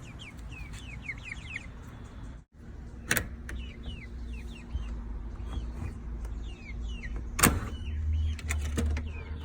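Eight-week-old Easter Egger and Black Australorp pullets peeping: many short, falling chirps over a low rumble. There is a sharp knock about three seconds in and a louder one about seven seconds in.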